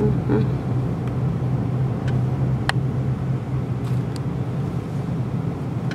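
Steady low drone of a car's engine and tyres, heard from inside the cabin while driving slowly, with a faint click about halfway through.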